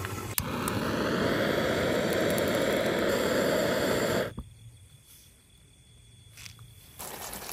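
A gas torch roaring steadily as it is used to light the campfire wood, starting abruptly and cutting off sharply after about four seconds.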